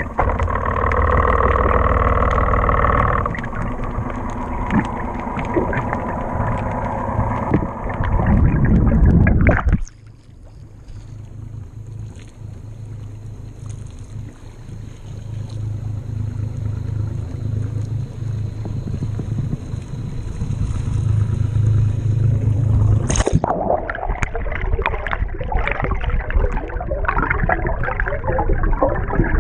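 Sound from a camera underwater: muffled rushing water with bubbling and scattered knocks. About ten seconds in, the camera comes above the surface and the sound drops suddenly to a quieter, steady low hum. Some thirteen seconds later the camera goes under again and the rushing and knocking return.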